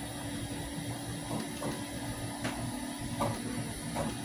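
Bambu Lab 3D printer running: a steady fan hum with a constant low tone, broken by a few short whirs as the print head moves.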